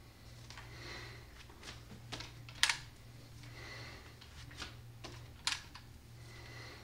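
Replica 1903 drill rifle being spun hand to hand: soft whooshes as it swings through the air, broken by sharp clicks and taps as the hands catch and re-grip it, the loudest about two and a half and five and a half seconds in. A steady low hum runs beneath.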